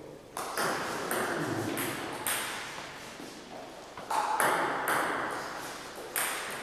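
Table tennis ball clicking off bats and the table, a handful of sharp, irregularly spaced clicks, each ringing on in the long echo of a large gym hall.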